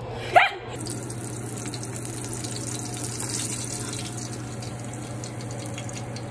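Spice-rubbed ahi tuna steak sizzling as it sears in hot oil in a pan, with a steady hiss and light crackling while tongs turn it. A brief loud sharp sound comes about half a second in.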